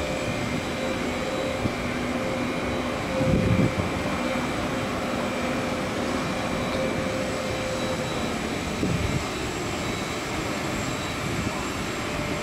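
Steady machinery drone and hum of the Spit Bridge bascule span being lowered. The hum breaks off about eight seconds in, as the span nears the road deck. A short low rumble comes about three and a half seconds in.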